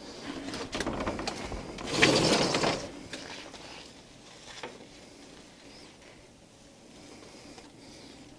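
Old metal-framed sliding window being slid along its track: a few clicks and rattles, then a louder scrape about two seconds in, and one more click a little later.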